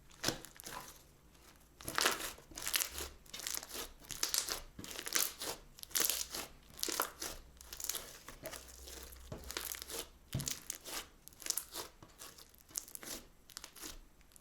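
Crunchy slime being squeezed and pressed by hand, giving a dense, irregular run of crackles and small pops.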